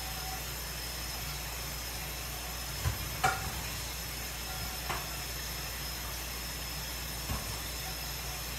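A few short clatters and knocks of things being handled and set down at a kitchen counter, the loudest a little past three seconds in, over a steady hiss.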